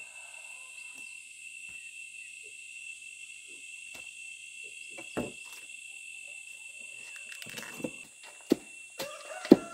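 Steady high-pitched chirring of a chorus of insects such as crickets, with a few sharp knocks joining in, the loudest ones near the end.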